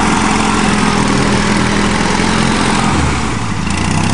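Argo 8x8 amphibious ATV's engine running steadily as it drives out of the water and climbs the bank, with water churning around its tyres. About three seconds in the engine note drops lower as it takes the slope.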